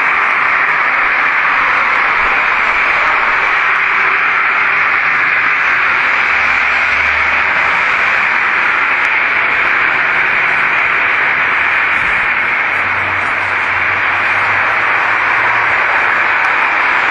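Steady, loud hiss of an amplified audio recording with no words in it. A faint low hum rises under it about a third of the way in and again near the end.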